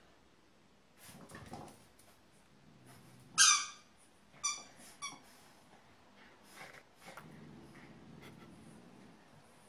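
French bulldog puppy giving short, high-pitched whining squeals, the loudest about three and a half seconds in, with two quieter ones a second or so later. A quieter low rumble lasts about two seconds near the end.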